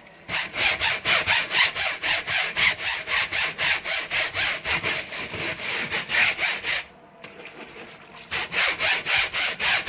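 Coarse brush scrubbing a wire-mesh window screen with soapy water, lifting the grease off it: quick back-and-forth strokes, about four a second. The strokes stop about seven seconds in and start again a second and a half later.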